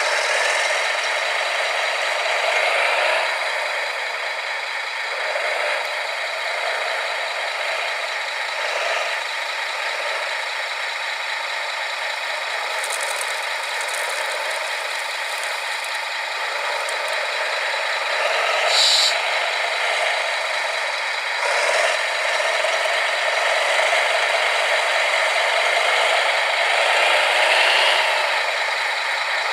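Radio-controlled model construction machines at work: small electric motors and gearboxes whining, rising and falling now and then, over a steady rattle and clatter of plastic and metal parts.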